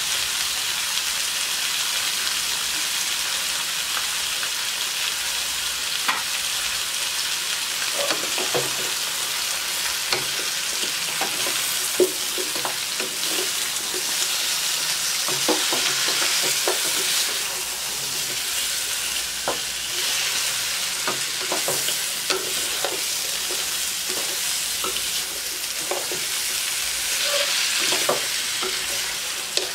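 Chicken pieces sizzling in a hot wok while a wooden spatula stirs and turns them. The sizzle is a steady hiss, broken by scattered knocks and scrapes of the spatula against the wok.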